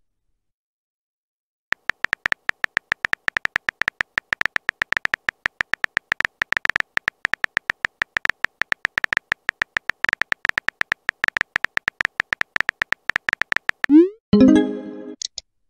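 Phone-keyboard typing sound effect from a texting-story app: rapid, even clicks, many a second, for about twelve seconds. Near the end comes a short rising chime as the message is sent.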